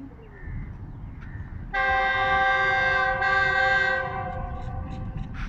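Horn of an approaching Pakistan Railways GEU40 diesel locomotive (No. 9028) hauling a container freight train: one blast of a chord of several steady tones, starting about two seconds in and lasting a little over two seconds, over a low rumble.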